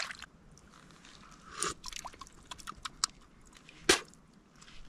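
Lip smacks and small wet mouth clicks of a man tasting coffee, with one sharper click about four seconds in.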